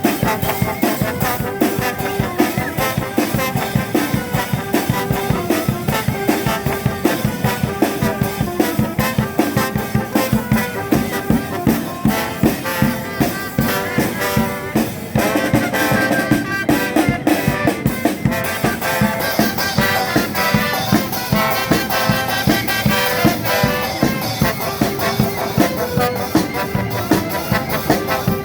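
Charanga brass band playing: trumpets and trombones carrying a tune over a steady drum beat.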